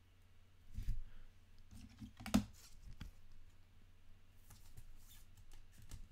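Soft handling noises of a trading card being slid into a clear plastic sleeve and a rigid plastic top loader: light plastic crinkles, clicks and taps, the sharpest tap about two and a half seconds in.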